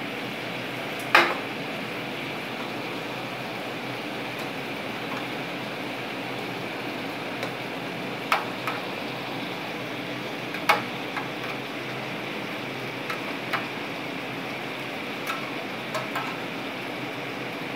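Salmon fillets searing in oil and marinade in a frying pan: a steady sizzle with sharp spitting pops every second or few seconds, the loudest about a second in.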